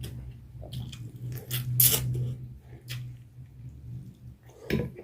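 A person chewing and biting food close to the microphone: a series of short chewing sounds, the loudest about two seconds in, over a low steady hum.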